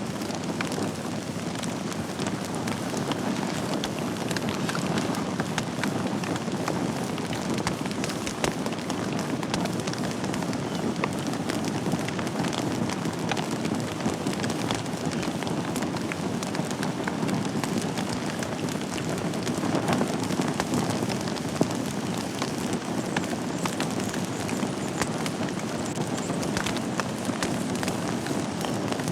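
Wood fire burning in a fireplace: a steady low rush of flames with frequent sharp crackles and pops, a couple of them louder than the rest.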